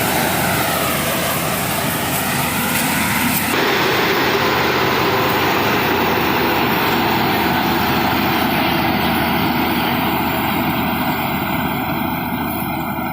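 Zoomlion FH 88 rice combine harvester running, a loud, steady engine and machinery noise. It changes abruptly about three and a half seconds in and eases off slightly near the end.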